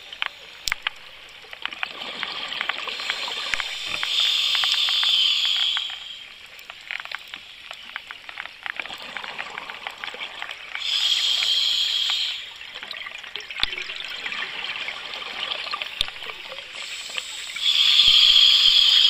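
Scuba diver breathing through a regulator underwater: three rushes of exhaled bubbles, roughly every seven seconds, with steady crackling and clicking between them.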